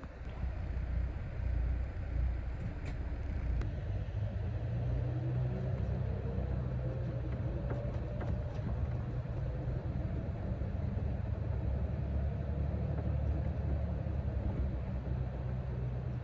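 Coach bus engine and drivetrain running, heard from inside the passenger cabin: a steady low rumble, with a whine that rises in pitch about five seconds in as the bus picks up speed.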